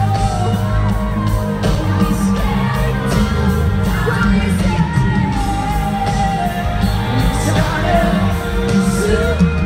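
Live pop concert heard from among the audience: loud amplified music with heavy bass and a lead singer, with crowd shouts and whoops over it.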